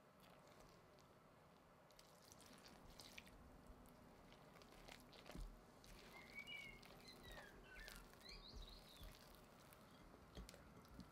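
Quiet sticky squishing and soft clicks of a spatula mixing flour and water into a shaggy bread dough in a glass bowl. A few faint bird chirps come in partway through.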